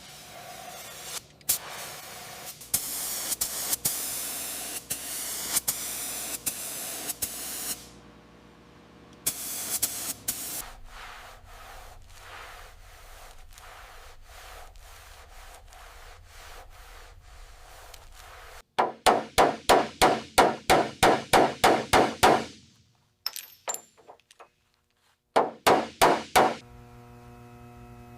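Workshop sounds: a hiss for several seconds with clicks through it, then two runs of rapid, even strikes, about three or four a second, the longer run about two-thirds of the way in and a shorter one near the end.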